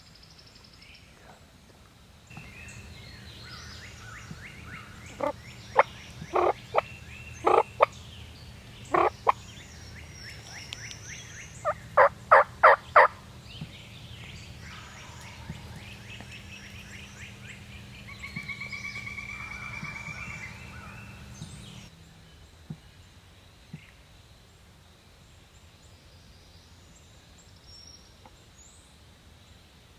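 Wild turkey gobbler gobbling at close range: several loud bursts of short rattling notes between about five and thirteen seconds in. Smaller birds sing in the background, and a steady low hum runs until about twenty-two seconds in.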